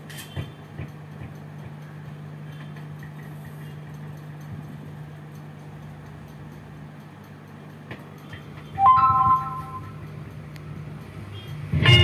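Low steady electrical hum from a powered-up echo mixer amplifier setup, with a few faint clicks. About nine seconds in a short, loud beep-like tone sounds. Near the end music with guitar starts playing loudly through the system.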